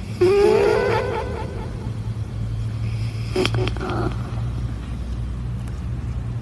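A cat close against a microphone gives a short wavering cry, then snores with a low, steady rumble. A few soft clicks come about halfway through.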